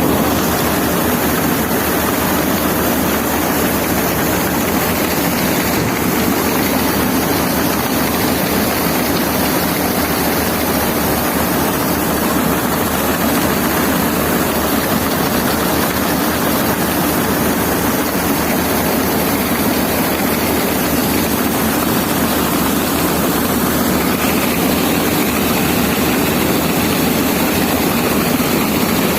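Wheat harvesting machine, most likely a combine harvester, running steadily with a continuous heavy engine and machinery drone; a higher steady whine joins near the end.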